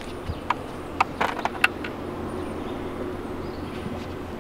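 A trotline being hand-pulled over the side of a bass boat: a quick run of sharp clicks and knocks about a second in, over a steady low hum.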